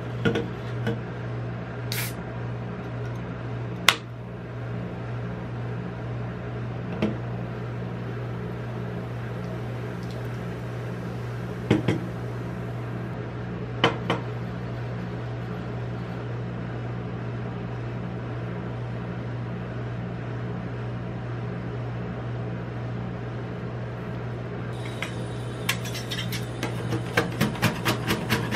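Steady low hum of a rolled-ice-cream cold plate's refrigeration unit, broken by a few sharp clicks and taps of a can and a jar on the steel plate. Near the end, two metal spatulas tap and scrape rapidly on the steel plate as the cola and milk mixture is chopped.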